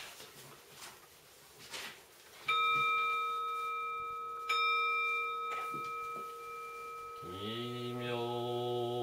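A Buddhist altar bowl bell (rin) struck twice, about two seconds apart, each strike ringing on in several steady tones. Near the end a deep voice begins a slow Buddhist chant on a held pitch.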